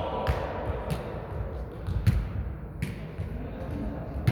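A jokgu ball being kicked and bouncing on the court: about five sharp thuds at uneven intervals, over faint background voices.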